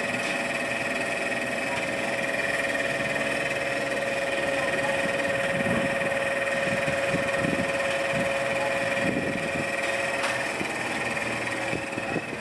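Small pump motor of a hydraulic basket wine press running with a steady hum, its pitch holding still and easing off near the end, with some low rumbling and knocks.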